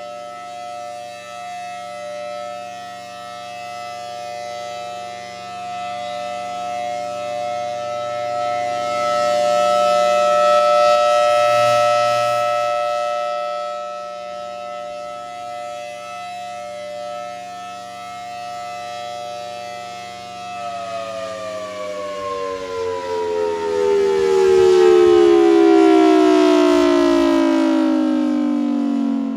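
Federal Signal Thunderbolt 1000BTSB outdoor warning siren sounding its steady full-alert signal as a two-note chord, its loudness slowly swelling and fading. About two-thirds of the way in, the pitch starts falling steadily as the siren winds down at the end of the test.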